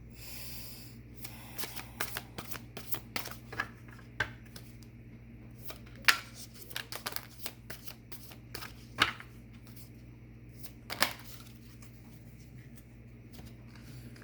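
Tarot cards being shuffled and handled, a run of quick rustles and clicks with three louder card snaps.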